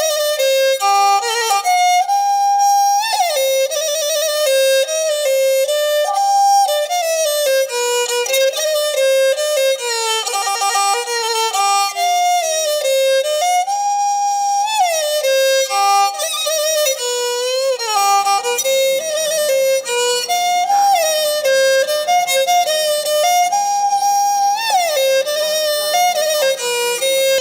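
Background music: a single bowed-string melody, with notes that slide up and down in pitch.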